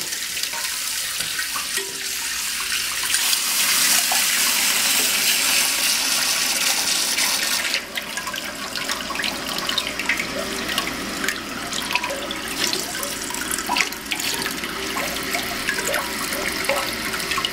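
Toilet cistern refilling through a newly installed fill valve: water hissing and splashing into the tank. The rush is strongest in the first half and eases to a lighter splashing after about eight seconds.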